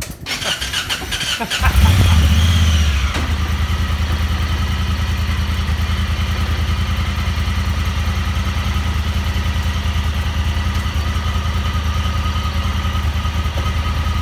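Honda Talon X's 999 cc parallel-twin engine cranked on the starter, catching about a second and a half in with a brief rev that dies away, then idling steadily.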